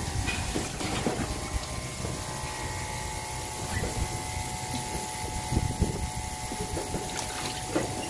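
Water running from a shower hose over a wet cat, with a steady machine hum underneath and irregular soft knocks and splashes as the cat is handled and rubbed.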